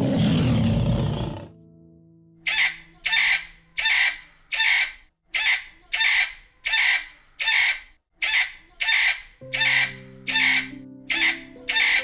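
A lion's roar trails off in the first second and a half, then a harsh animal call repeats evenly, about two a second, over steady background music.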